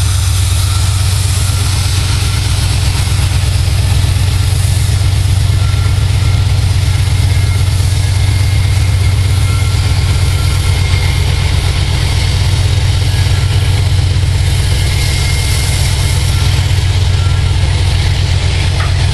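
Two CSX diesel-electric locomotives pulling a loaded coal train away on departure, their engines working with a steady deep drone.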